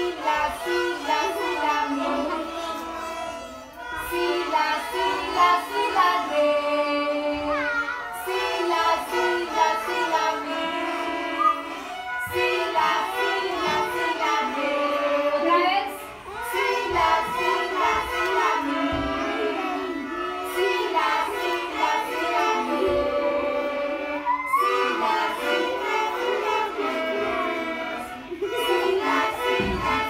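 A class of child violin students playing a tune together on violins with their teacher, held bowed notes with occasional slides between them.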